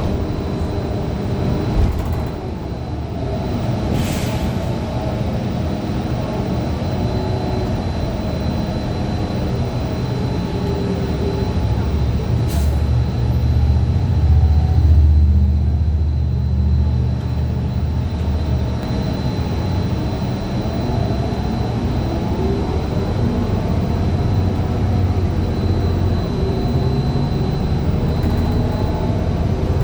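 Ride noise inside a 2015 Gillig Low Floor CNG transit bus: the Cummins Westport ISL G engine and drivetrain rumble steadily, swelling louder about halfway through as the bus pulls away, with a faint steady high whine and a few sharp clicks. The bus's Allison B400R transmission is one the uploader calls messed up.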